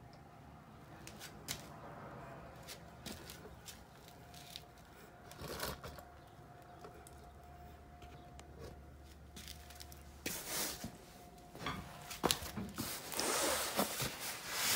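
Faint scattered clicks and light knocks, then rustling and scraping as fleece clothing brushes against the phone near the end.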